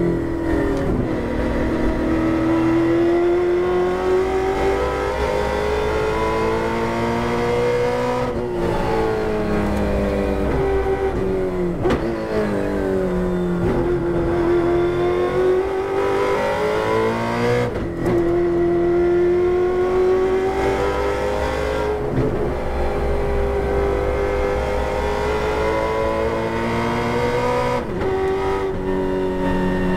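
Holden Torana touring car's V8 engine at racing speed, heard from inside the car. The engine note rises and falls and breaks off sharply about five times, roughly every four to six seconds, as the driver changes gear or lifts.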